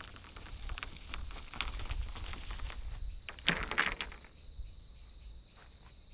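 Footsteps on grass with the light rattle of a carried bundle of thin dry poles, then the bundle dropped onto the ground with a short clattering crash about three and a half seconds in. A steady high insect drone runs underneath.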